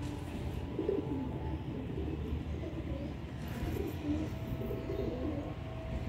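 Domestic pigeons cooing: low, wavering coos repeating on and off.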